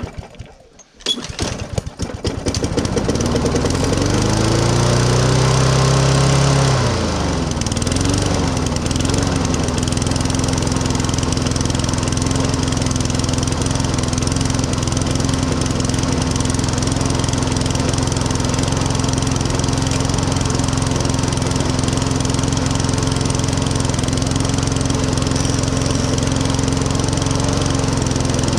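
Champion rotary lawnmower's small petrol engine being pull-started: a couple of pulls, then it catches, revs up, dips and hunts for a couple of seconds, and settles into a steady run. This is its first run after water was found in the oil, the oil replaced and the carburettor bowl drained.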